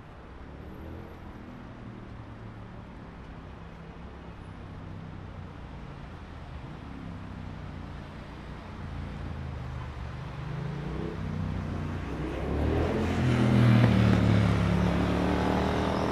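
Street traffic rumble, with a motor vehicle's engine growing steadily louder as it approaches and passes close, loudest about three-quarters of the way through.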